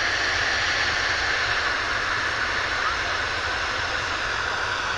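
Jet airliner's turbofan engines running steadily at low taxi power, a continuous rushing noise with a high whine over it.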